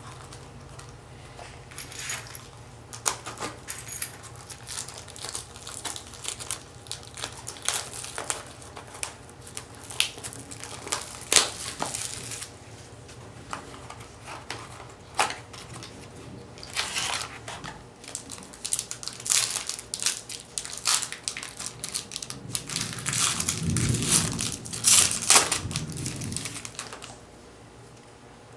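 Foil wrapper of a 2007 Topps Triple Threads card pack crinkling and tearing as it is opened by hand, with sharp crackles throughout. There is a louder stretch of rustling near the end.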